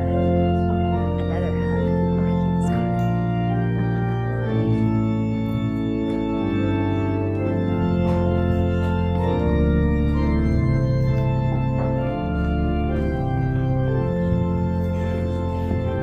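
Organ playing slow, held chords, the notes changing every second or two.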